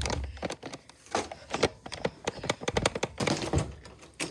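Irregular taps and clicks, several a second, like objects being handled.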